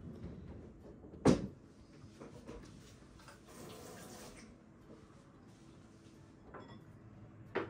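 Kitchen work sounds: a sharp, loud knock about a second in, then a short burst of running water from a tap in the middle, and two smaller knocks near the end.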